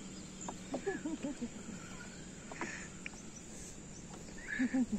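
Riverside tropical-forest ambience: a steady high insect drone, with two short runs of quick low calls, about a second in and louder near the end.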